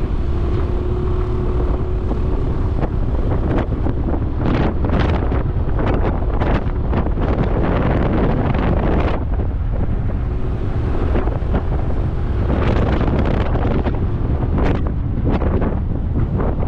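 Wind buffeting the microphone of a Suzuki scooter riding at about 40 km/h, a steady low rumble with gusts that come and go, over the scooter's running and road noise.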